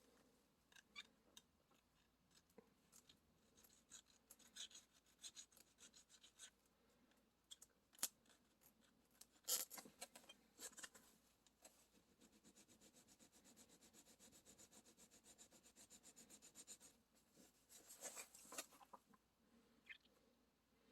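Faint, light filing strokes of a fine file on the copper of a GPU waterblock, taking a burr off around a hole. There is a sharp click about eight seconds in and a run of quick, even strokes in the middle.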